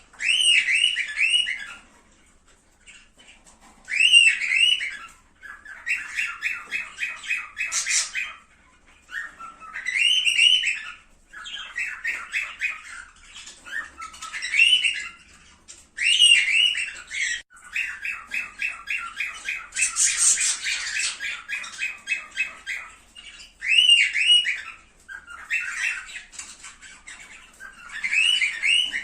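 Cockatiels calling and chattering: repeated whistled squawks and runs of rapid stuttering chatter, in bursts every second or two.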